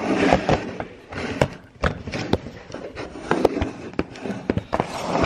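Handling noise from the camera being moved and set back in place: a run of sharp knocks and clicks over rustling and scraping.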